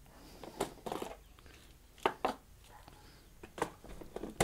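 Irregular light knocks and clicks, about half a dozen spread over a few seconds, of small hard objects being picked up and set down.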